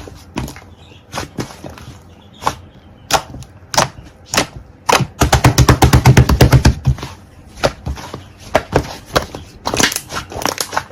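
Slime being squeezed and pressed by hand, making sharp wet clicks and pops, with a fast run of crackling pops for about two seconds in the middle.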